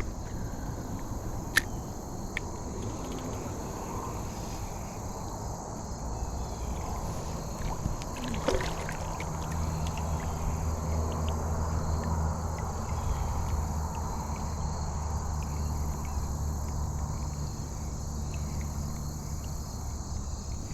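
Outdoor river ambience: steady insect chirring in the high range over a low steady hum that sets in about six seconds in, with a few isolated clicks.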